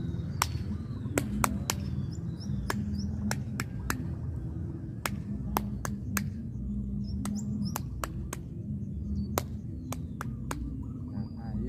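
Sharp, irregular clicks, a little under two a second, over a steady low hum, with birds chirping faintly.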